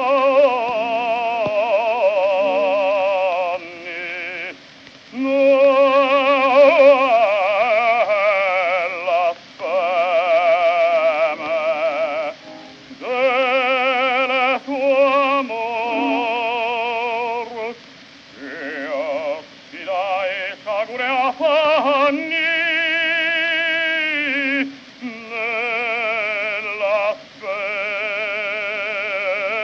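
Operatic baritone singing a slow bel canto aria in an early acoustic recording: a full voice with a wide, even vibrato, its phrases parted by short breaths. The sound is thin, with no deep bass and no high treble.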